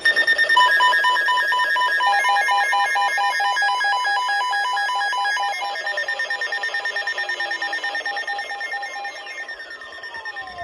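Electronic alert tone from a NOAA weather radio announcing an incoming special marine warning: rapid on-off beeping at several pitches over steady high tones, with falling pitch sweeps coming in over the last few seconds.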